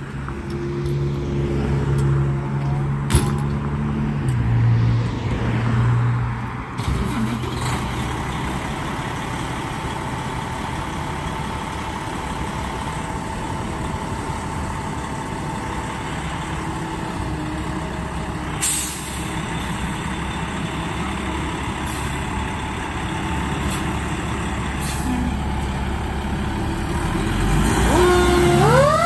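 Pierce Arrow XT fire engine's diesel engine running as the truck moves off, with a few brief hisses of air from the brakes. Near the end the siren starts to wind up in a rising wail.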